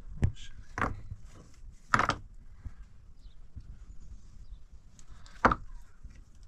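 Rough fieldstones being set one on another as a stone wall is rebuilt by hand: four sharp knocks of stone on stone, the loudest about two seconds in and another near the end.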